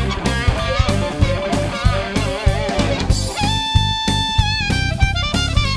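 Background music: electric guitar over a drum kit with a steady beat, with one long held note in the middle.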